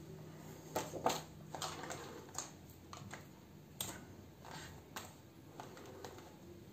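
Hands handling objects on a table: an irregular string of light taps, clicks and rustles, loudest about a second in.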